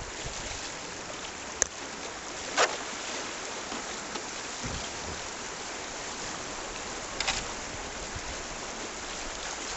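River rapid water rushing steadily around a kayak, broken by a few sharp knocks: two in quick succession early, the second the loudest, and a smaller clatter later on.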